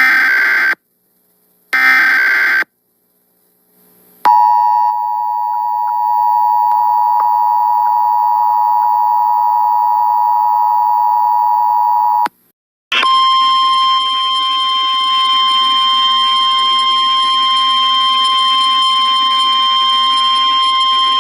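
Emergency Alert System warning tones. The last two of three short digital header bursts come first. Then the two-tone EAS attention signal holds steady for about eight seconds. After a brief gap, a single steady NOAA Weather Radio warning tone runs on.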